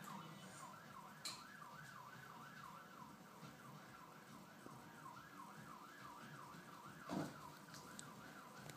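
Faint emergency-vehicle siren in a fast yelp, rising and falling about three to four times a second, played from a television. There is a sharp click about a second in and a thump about seven seconds in, which is the loudest sound.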